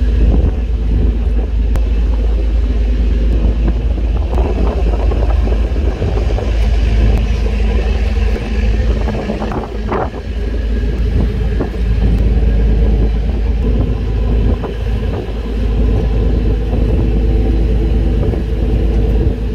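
A fishing boat's engine running steadily: a deep, continuous hum with a few faint knocks over it.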